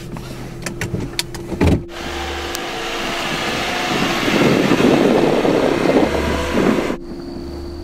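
A few sharp clicks and a thump, then a car driving past and away: engine and tyre noise swelling louder, then cutting off abruptly.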